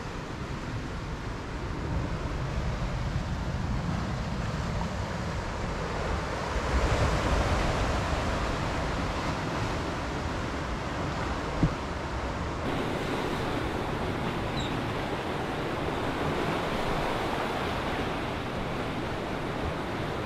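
Surf washing onto the shore, a steady rushing noise that swells about seven seconds in. A single short tick sounds near the middle.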